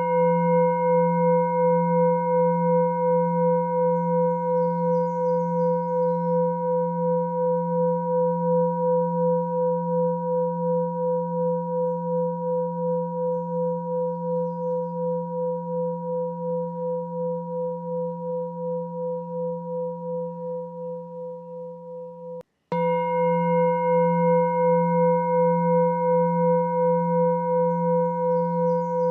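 A struck, bell-like meditation tone ringing on with a slow pulsing beat and fading gradually. About 22 seconds in it cuts off abruptly and is struck again, ringing as before.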